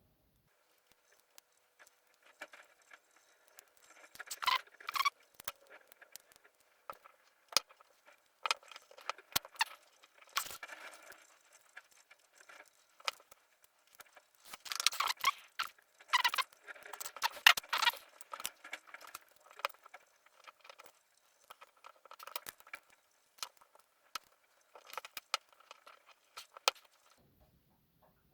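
Small metal tool scraping, clicking and rattling against the cylinder of an ABUS D6X dimple padlock while working its C-clip off, in irregular bursts. The busiest scraping comes about four seconds in and again midway.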